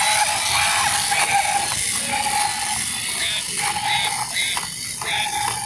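Battery-powered walking gorilla toy running, its plastic gearbox clicking and rattling, with a short electronic tone from the toy repeating about every couple of seconds.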